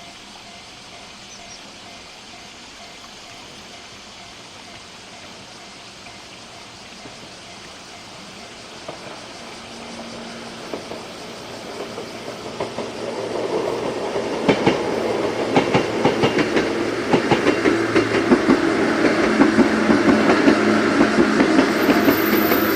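A JNR 103 series electric commuter train approaching and passing. Its rumble builds steadily from about a third of the way in, and from about the middle there is a loud run of wheel clacks over the rail joints.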